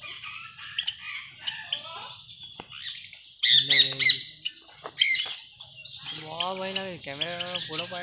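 A flock of parrots and small cage birds chirping continuously, with several loud, harsh parrot squawks about halfway through.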